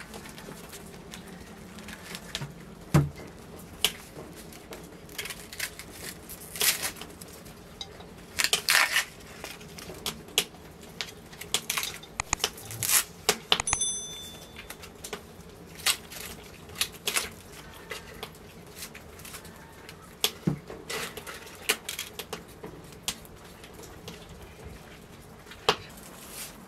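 Food-preparation handling sounds: irregular knocks, taps and clinks as produce, a knife and dishes are handled on a wooden table, with a brief high ringing clink about halfway through, over a faint steady low hum.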